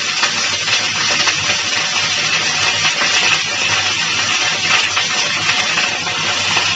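Hot sesame oil sizzling steadily in a pan of half-fried onions, with freshly added drumstick (moringa) leaves on top.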